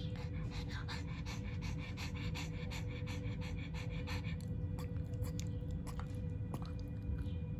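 Pug panting quickly, about four breaths a second, stopping a little past halfway, over a steady low hum.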